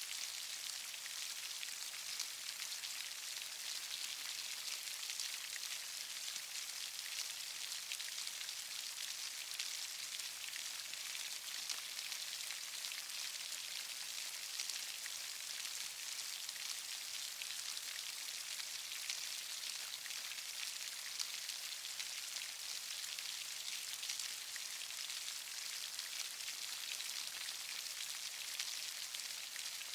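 Steady rain, an even hiss full of fine drop patter.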